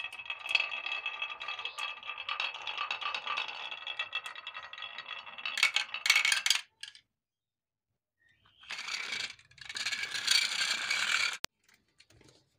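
Glass marbles rolling down the wavy carved groove of a wooden slope track: a continuous rattling roll with a ringing tone, ending in a cluster of sharp clacks about six seconds in as they drop off the end. After a short pause there is a second stretch of marbles clattering, which cuts off suddenly.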